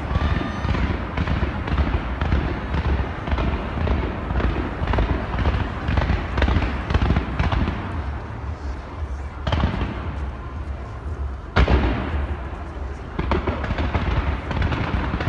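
Fireworks show: a continuous barrage of firework bursts, crackles and deep booms, with one especially sharp bang about three-quarters of the way in.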